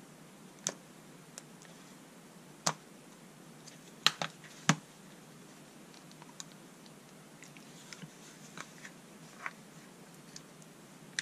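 Sparse small metal clicks and taps as pins are pushed out of a Black & Decker cordless screwdriver's metal nose housing with a thin pick and the tool is handled, the loudest clicks bunched around four seconds in, then fainter ticks.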